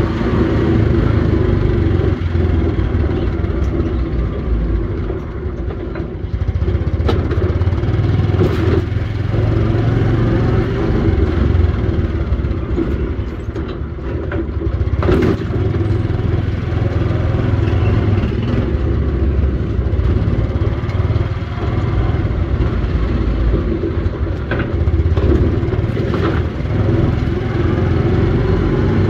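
Engine of a small road vehicle running steadily while riding along a street, with road noise and a few brief knocks, the clearest about halfway through.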